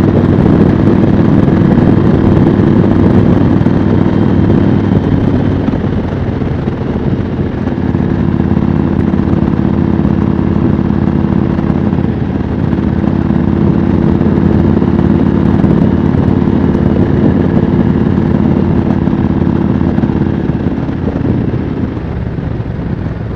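Yamaha Road Star air-cooled V-twin motorcycle engine running steadily at cruising speed, with a steady rush of wind. The engine note eases off about six seconds in, picks up again, and eases off once more near the end.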